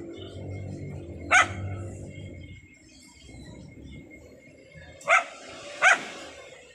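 A dog barks three times: once about a second in, then twice close together near the end. A low rumbling noise underlies the first couple of seconds.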